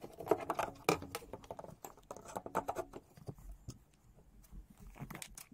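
Irregular clicking and knocking of hard objects being handled, denser in the first few seconds and thinning out after that.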